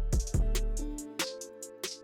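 Background music with a steady beat: deep bass, sharp drum hits and held keyboard-like notes, a hip-hop style track.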